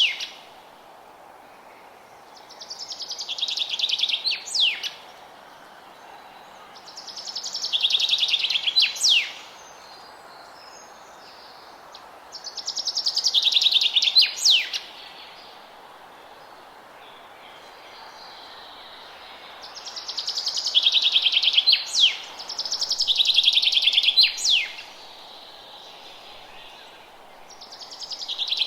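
A songbird repeats the same song about six times, every four to six seconds. Each song is a fast high trill of about two seconds that grows louder and ends in a quick sharp downward note, over a steady low background hiss.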